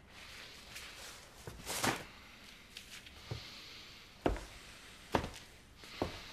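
Slow footsteps indoors, one thud about every second, after a louder rustle about two seconds in.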